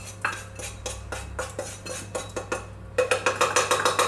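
A spoon scraping and knocking against a pan while buttered biscuit crumbs are spooned out into a baking tin. Near the end comes a quick, louder run of taps, about eight a second.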